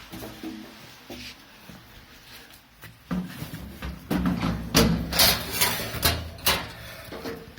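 Irregular knocking and clattering of metal gas-grill parts being handled and fitted, starting about three seconds in, with several sharp knocks near the middle.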